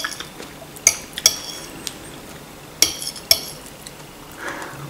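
A metal fork clinking against a ceramic plate while picking up food: four sharp clinks in two pairs, about two seconds apart.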